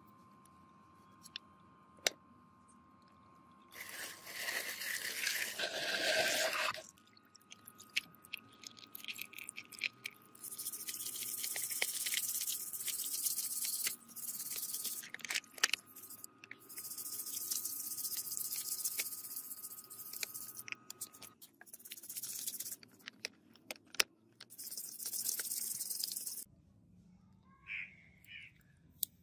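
A stiff brush scrubbing the wet metal body of a revolver-shaped vintage oil lighter, in several bristly bursts of a few seconds each, with scattered clicks and taps of the parts being handled. A faint steady high hum runs under the first two-thirds.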